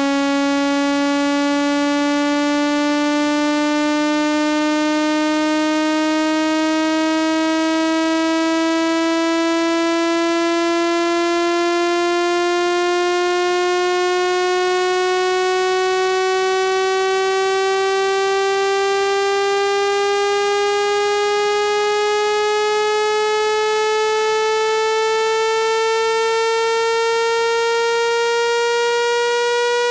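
Electronic water-eject tone for clearing water from a phone speaker: one steady synthesized tone with many overtones, its pitch rising slowly and evenly all the way through.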